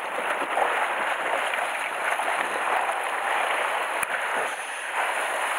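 Sea water surging and washing over the shore rocks, a steady rush. A single sharp click about four seconds in.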